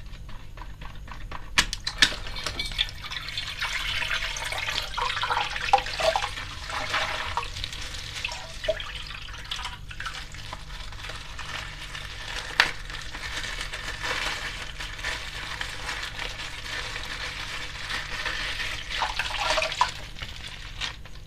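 Water pouring and splashing steadily, with a few sharp clicks about two seconds in and near the middle.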